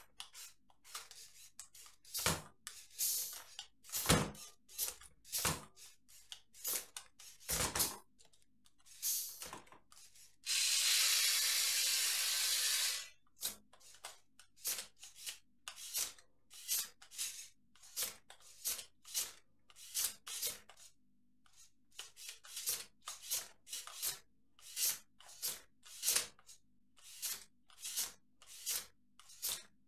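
Compressed air hissing in many short bursts, roughly one or two a second, from a Lego Technic pneumatic system as air is let into and out of its cylinders. About ten seconds in there is one longer hiss of about two and a half seconds. The air comes from bottle tanks pumped to 30 psi, enough to lift a front wheel of the truck.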